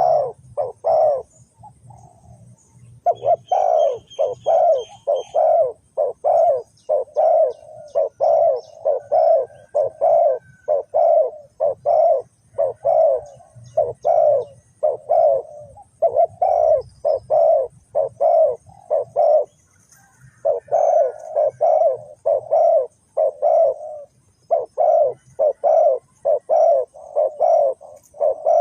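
Spotted doves cooing: a long run of low, evenly spaced coo notes, about two a second, broken by short pauses about two seconds in and again around two-thirds of the way through.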